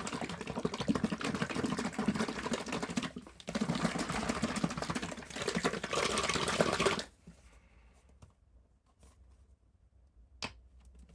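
Polishing cloth rubbed rapidly back and forth by hand over a scratched carbon-fibre panel, buffing out the scratches. The scrubbing pauses briefly about three seconds in and stops about seven seconds in. A single sharp click comes near the end.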